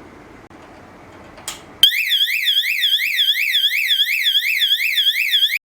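YA90 fire strobe siren sounding its first selectable tone: an electronic whoop sweeping rapidly down and up about three times a second. It comes in abruptly about two seconds in, just after a short click, and cuts off sharply near the end.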